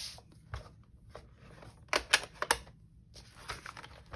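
Hand handling of paper and a scoring tool: a bone folder scratching along a scoring board's groove in short strokes, with three sharp clicks about two seconds in.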